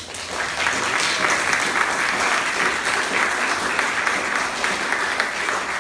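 Audience applauding: dense hand-clapping that starts suddenly and holds steady.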